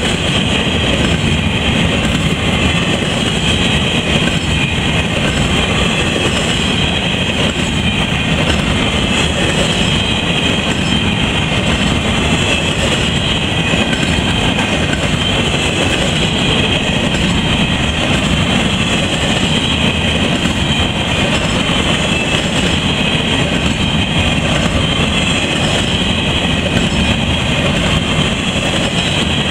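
Freight train of articulated intermodal well cars rolling past at close range: a steady, unbroken rush of steel wheels on rail.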